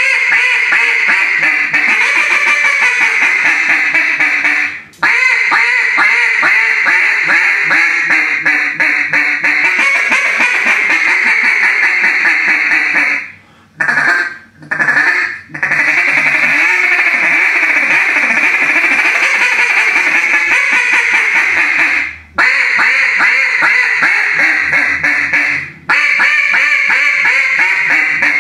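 FDWC Prophet Double Reed duck call blown in long, loud runs of hen duck quacks and calling sequences, broken only by a few short pauses for breath.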